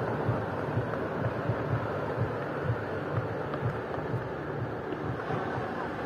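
Steady outdoor noise with irregular low buffeting of wind on the microphone.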